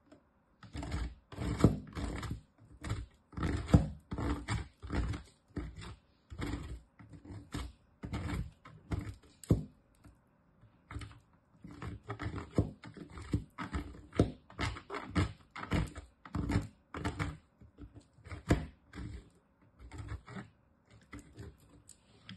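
Bar of soap grated against a metal box grater: repeated rasping strokes, about one or two a second, some in quick pairs.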